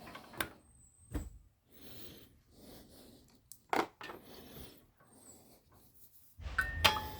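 Clicks, knocks and handling rustle as battery leads are swapped on a Motohorn 3.0 air-horn compressor, with a louder rumble of handling near the end. No motor runs: the compressor is dead.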